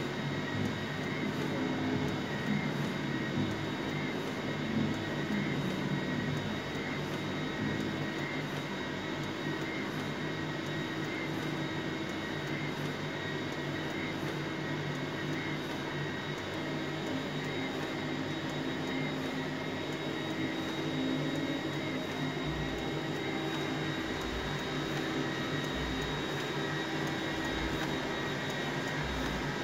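Epson T7200 large-format inkjet printer printing: a steady mechanical hum with the print-head carriage shuttling back and forth across the paper, passing about once a second.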